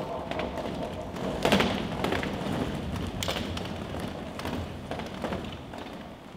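Scattered thuds and taps of performers moving about a stage floor with metal-frame chairs, over a low rustling noise. The sharpest knocks come about a second and a half and three seconds in, and the sound slowly quietens toward the end.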